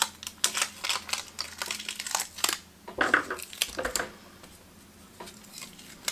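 Aluminium tape crinkling and crackling as it is handled, a quick run of crackles that dies down about four seconds in.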